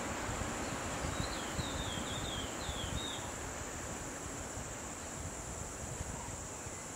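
A steady, high-pitched insect drone, with a bird calling a quick run of five or six falling notes about a second in.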